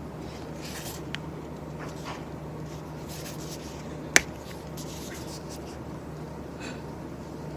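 Quiet desk handling sounds: scattered soft rustles and light taps, with one sharp click about four seconds in, over a steady low hum.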